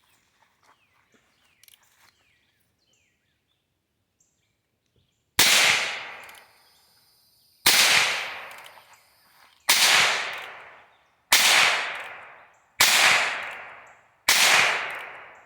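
Six shots from a Heritage .22 revolver, fired one to two seconds apart, emptying its six-shot cylinder. Each is a sharp crack that trails off over about a second. A few faint clicks come before the first shot.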